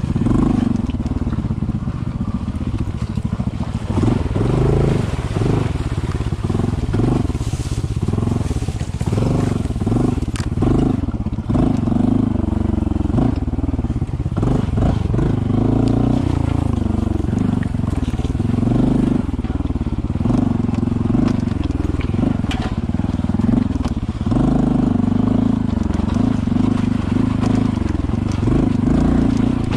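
Honda CT125's single-cylinder engine running at low speed while the motorcycle is ridden over a muddy trail, its note rising and falling with the throttle, with scattered knocks from the bike over rough ground.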